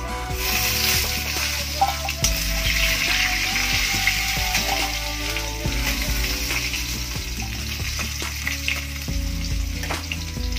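Whole par-boiled potatoes sizzling in hot oil in a metal kadai while a metal ladle turns them, with the ladle clinking against the pan now and then. Background music plays underneath.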